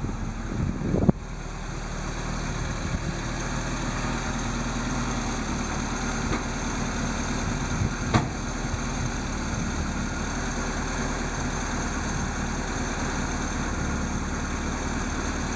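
1972 BMW 2002's four-cylinder engine idling steadily. A short sharp sound stands out about a second in, and a single click about eight seconds in.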